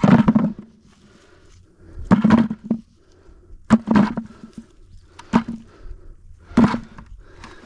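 Walnuts being gathered: five dull, hollow thunks, one about every second and a half.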